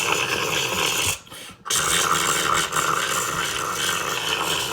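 Rough, hissing, static-like noise with no tune in it, broken by a short dropout about a second in.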